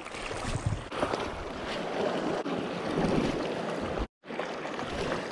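Wind on the microphone over lapping sea water, a steady rushing noise; the sound cuts out for a moment about four seconds in.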